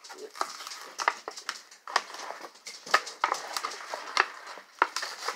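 Plastic blister packaging of a diecast toy car being crinkled and pried at by hand: irregular crackles and sharp clicks of stiff plastic.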